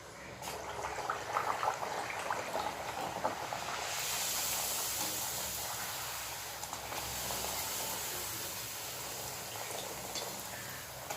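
Wheat poori deep-frying in hot oil: crackling sizzle that turns into a louder, steady hiss about four seconds in.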